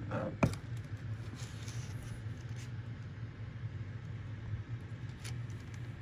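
A portable cooler running with a steady low hum inside the van, with a sharp knock about half a second in and a light click about five seconds in.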